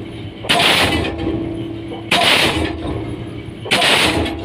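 Diesel pile hammer driving a pile, three heavy blows about a second and a half apart, each a sharp bang followed by a brief blast of exhaust. A steady hum carries on between the blows.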